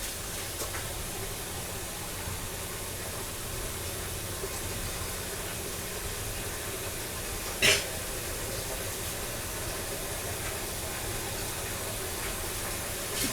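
Steady hissing noise with a faint low hum underneath, broken by one sharp click about halfway through.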